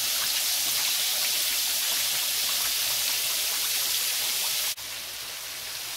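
Potato French fries deep-frying in canola oil in a skillet, the oil at a full boil: a steady crackling sizzle. It drops suddenly to a quieter sizzle near the end.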